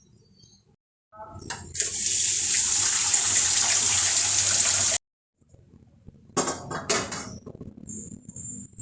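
Water running hard from a tap for about three seconds and cutting off suddenly, then shorter bursts of splashing and clatter.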